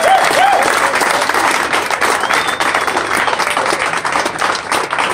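A small crowd clapping and cheering, with a couple of short whoops near the start. The applause thins into scattered separate claps toward the end.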